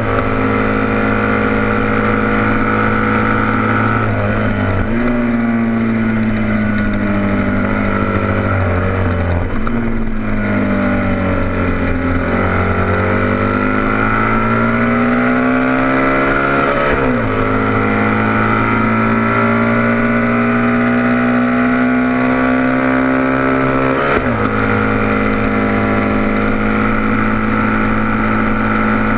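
Racing motorcycle engine at high revs, heard from a camera mounted on the bike, with rushing wind. Its pitch falls twice into a slower section, bottoms out about halfway through, then climbs again, with sharp drops in pitch at gear changes around two-thirds of the way through and near the end.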